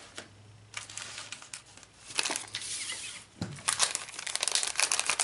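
Clear plastic bag of paper die-cut pieces crinkling as it is handled and pulled open. The crackling is sparse at first and turns loud and dense in the last second and a half.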